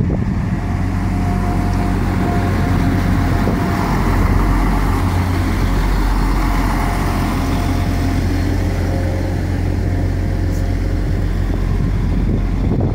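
Transport for Wales Class 175 diesel multiple unit running past close by: a steady deep diesel engine hum and wheel-on-rail noise, with a thin steady whine over it, loudest about four to six seconds in.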